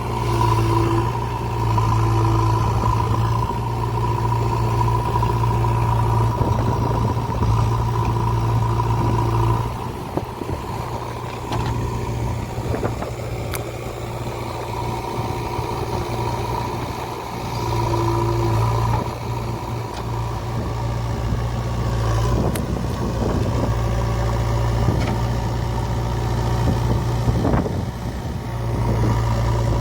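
JCB 3DX backhoe loader's diesel engine running steadily, growing louder and quieter by turns, with a few sharp clanks or knocks.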